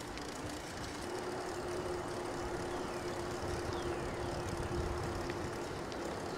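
Riding noise from a bicycle rolling along a trail: tyre and wind noise with a steady faint hum underneath.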